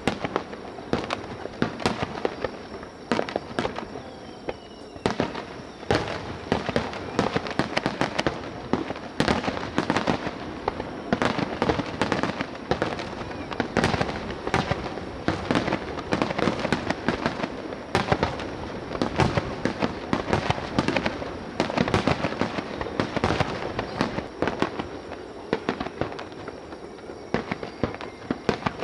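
Fireworks display: a dense, continuous barrage of aerial shell bursts and crackling, many sharp bangs a second over a rolling rumble.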